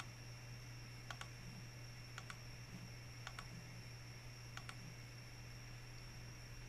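Four faint computer-mouse clicks, about a second apart, over a steady low electrical hum.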